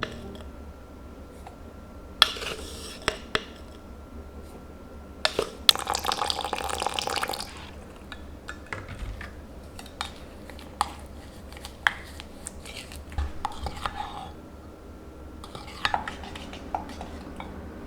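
Kitchen work sounds: dishes and utensils clinking and knocking at irregular intervals, with two short bursts of hissing, water-like noise, the longer one about two seconds.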